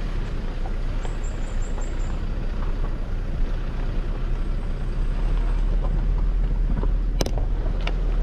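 Vehicle driving along a road: a steady engine and road rumble, with a sharp click about seven seconds in.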